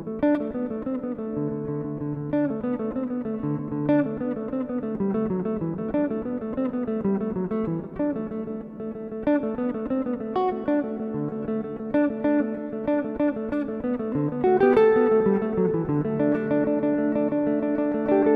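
Background music: a guitar picking out a melody of plucked notes over chords.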